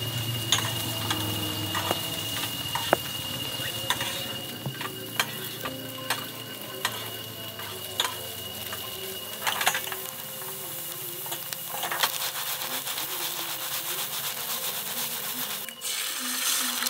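Cubes of corned beef sizzling in oil in a frying pan on a portable gas stove, with sharp clicks and scrapes of a utensil against the pan as they are stirred.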